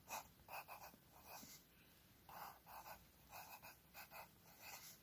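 Faint scratching of a pencil writing on a textbook page: a string of short, irregular strokes.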